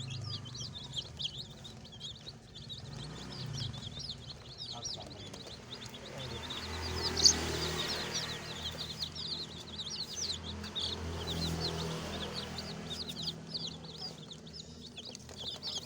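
A brood of baby chicks peeping without pause, many short high chirps overlapping, each a quick sweep in pitch. A single sharp knock about seven seconds in.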